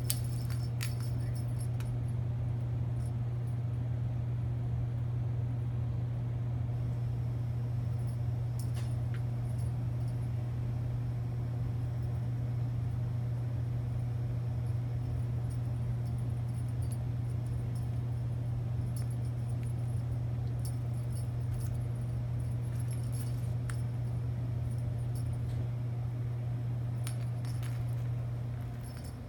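A steady low hum, the loudest thing throughout, dropping away near the end, with scattered light clicks and rattles as a kitten bats a worm-on-a-wand cat toy on a wooden floor.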